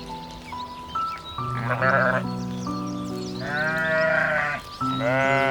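Sheep bleating three times, with a wavering tremble, the middle call the longest, over background music with steady held notes.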